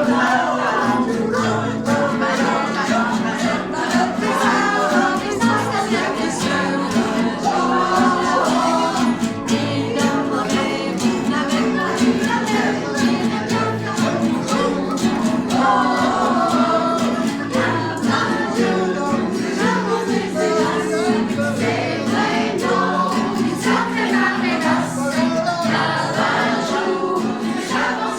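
A group of about twenty amateur singers improvising vocally over a playful song, many voices overlapping above a steady held low note, with many short clicks mixed in.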